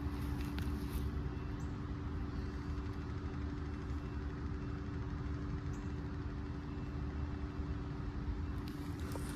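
Steady low rumble and drone of an idling vehicle engine, unchanging throughout, with a few light clicks near the start and end.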